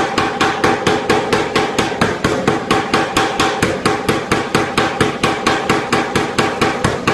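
Anyang 25 kg (55 lb) self-contained air power hammer forging a red-hot steel bar, its ram striking in rapid, even blows at about five a second.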